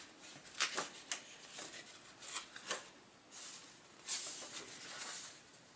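Pages of a paper booklet being turned by hand: a few soft crisp flicks early on, then longer rustles of paper sliding over paper in the second half.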